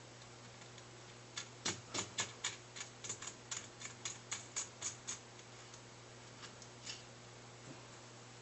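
Light metal clicking from a nut being spun by hand onto a long bolt carrying washers and a spring. There is a quick run of about a dozen clicks, roughly three a second, then a few scattered ones.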